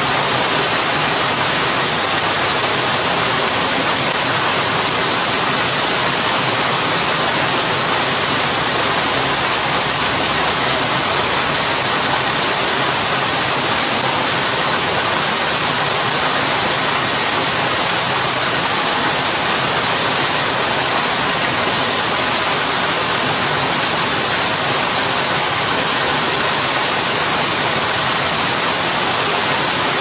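Steady rain, a dense even hiss that does not let up.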